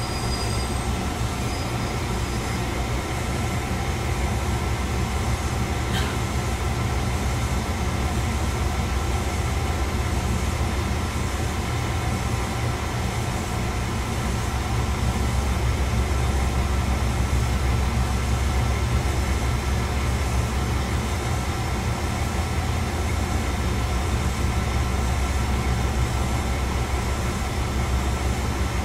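Chizu Express HOT3500 diesel railcar under way, heard from inside the car: a steady low diesel engine hum and running rumble with faint steady whining tones above it. A single faint click comes about six seconds in, and the sound grows slightly louder about halfway through.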